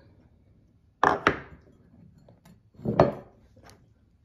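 Knocks and clacks of a ceramic canister and its wooden lid being handled and set down on a table: a quick pair about a second in, another knock near three seconds, and a few faint ticks between.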